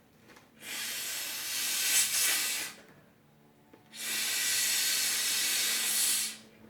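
Two long breaths blown by mouth into the valve of an inflatable pool toy, each a rushing hiss of about two seconds with a short pause between.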